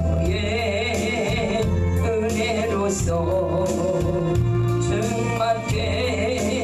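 Music with singing: a voice holding wavering sung notes over steady bass accompaniment.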